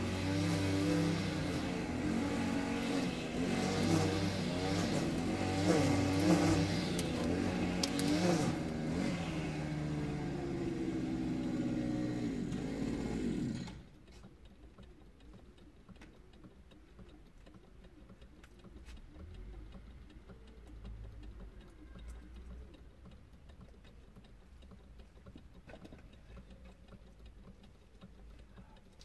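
Car engine running while the car stands still, its pitch rising and falling as it is revved, then cut off abruptly about halfway through. After that only a faint low background remains.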